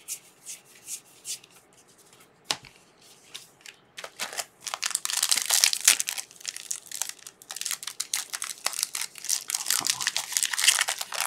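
Trading cards handled with a few light clicks, then from about four seconds in a foil trading-card pack wrapper torn open and crinkled in the hands, a dense continuous crackle.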